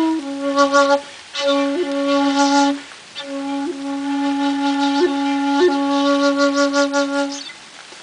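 A 1.9 shakuhachi (bamboo end-blown flute) playing long held low notes with brief upward grace-note flicks, in three breath-long phrases; the last and longest note stops about a second before the end.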